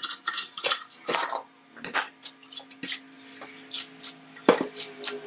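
Clinks and knocks of metal carriage-lamp parts being handled: the tail cup, its solder joints just melted with a torch, is worked off the lamp body and set down on a wooden bench. The loudest knock comes about four and a half seconds in and leaves a short metallic ring.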